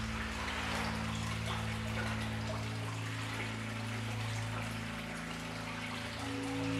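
Slow ambient music of held low notes that change about three seconds in and again near the end, over a steady trickling of water.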